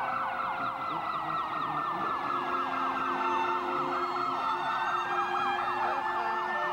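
Electronic siren-like warbling, a fast falling sweep repeating about seven times a second, with a slower gliding tone and steady tones underneath.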